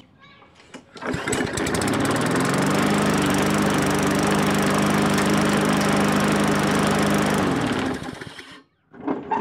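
Tecumseh engine on a walk-behind push mower starting up about a second in, rising in speed and running steadily for about six seconds, then shut off and winding down. The blade is bent, and the unbalanced blade sets the whole mower shaking hard as it runs.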